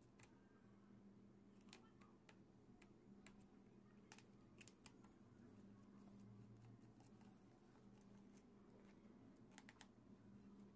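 Faint, irregular small clicks and scrapes of a precision screwdriver turning screws out of a plastic speaker housing, over a faint steady low hum.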